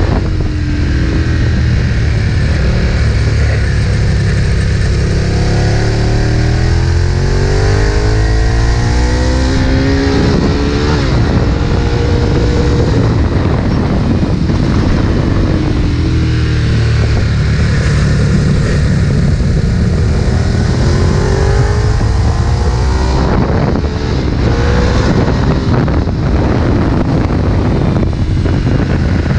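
Ducati 1098's V-twin engine at high revs on a race track, rising in pitch again and again as it pulls through the gears. The pitch drops off when the rider closes the throttle, about 10 s, 23 s and 28 s in.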